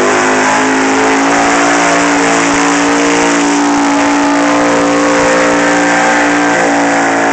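Dodge four-wheel-drive pickup's engine held at high revs under full load while pulling a weight sled, its pitch rising a little at first and then holding steady. Under it is a hiss of spinning tyres throwing dirt.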